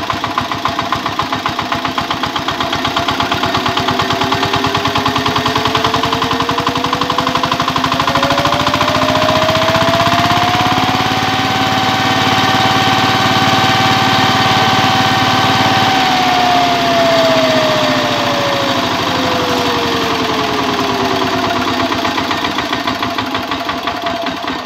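VST power tiller's single-cylinder diesel engine revved up slowly, held at high speed for several seconds, then let back down to idle, with a fast steady chugging throughout. It is revved to test the charging voltage of the new wiring.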